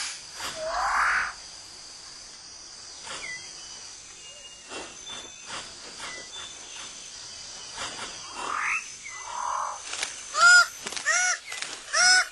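New Guinea rainforest with a steady high insect drone and a few rising whistled bird calls, then from about ten seconds in a loud run of repeated harsh calls, about one and a half a second, from a bird of paradise.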